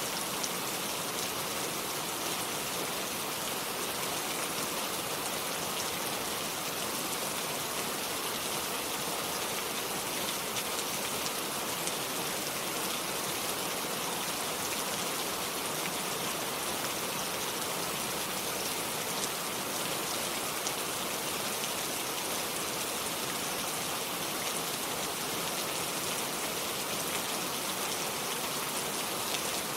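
Steady, even rain falling, with fine drops pattering on surfaces and no thunder.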